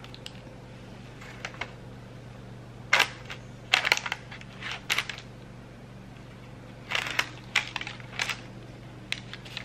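Crackling, rustling bursts as hands pull apart freshly baked, sesame-topped braided bread on a parchment-lined tray, in clusters about three seconds in and again about seven seconds in. A steady low hum runs underneath.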